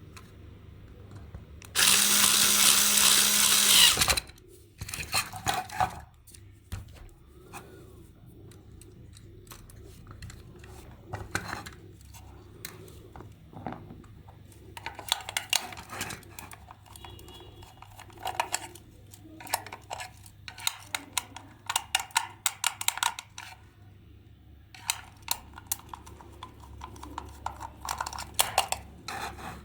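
A small power tool runs steadily at one pitch for about two seconds, then stops. Many small clicks and brief scrapes follow as small parts are handled and worked on.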